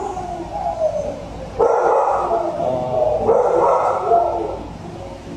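Many dogs barking at once in shelter kennels, overlapping in waves of a second or two, with some drawn-out sliding cries among the barks.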